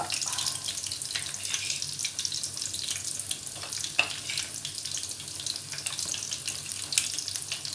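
Coated chicken pieces frying in hot oil in a pan: a steady sizzle of dense fine crackling, with sharper pops about four seconds in and near the end.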